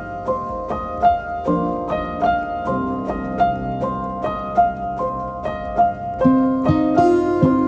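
Background music: a gentle piano-like melody with evenly paced notes and a steady rhythm.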